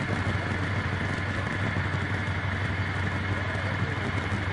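Steady low hum of slow-moving escort vehicle engines running close by, with even street noise and no distinct events.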